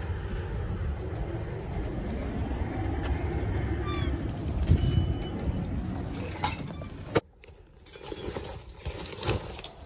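Outdoor noise of traffic and wind on the microphone, a steady low rumble with a few brief high chirps about four seconds in, cutting off suddenly about seven seconds in. After that come quieter scattered clicks and rattles of a metal shopping cart being handled.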